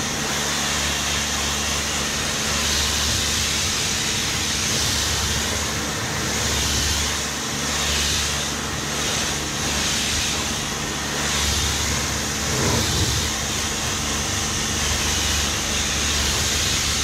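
Pressure washer running: a steady motor hum under the hiss of the water jet rinsing chemical tar and glue remover off a car bonnet.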